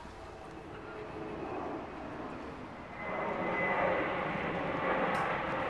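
Airplane passing overhead: a steady rushing engine noise that gets louder about three seconds in, with a faint high whine.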